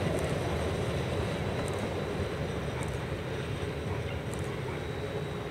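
Stadler Flirt III electric multiple unit running away along the track: a steady rumble of wheels and traction gear that slowly fades.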